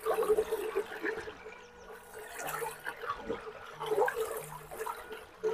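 Close wet chewing and mouth sounds, with fingers squishing and mixing rice and fish on a banana leaf: a string of small irregular crackles and smacks.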